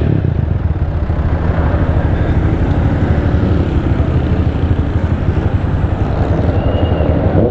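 Motorcycle engine running in traffic, a loud, rough and uneven exhaust rumble.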